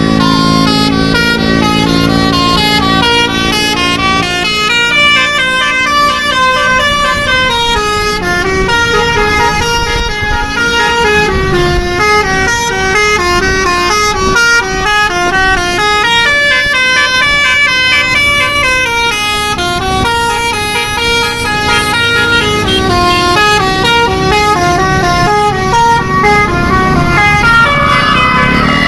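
Indonesian bus telolet (basuri) multi-trumpet horn playing a long, continuous melody of quick stepping notes, running up and down in repeated runs.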